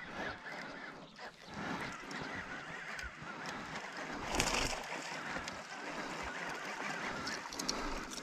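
Birds calling with honking calls, and a brief louder rush of noise about halfway through.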